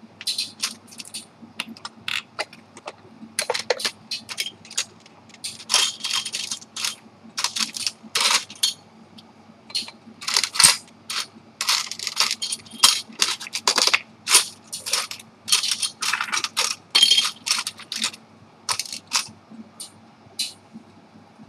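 Irregular run of light metallic clicks and short scrapes as small parts are worked against a steel watch case by hand, with a faint steady hum beneath.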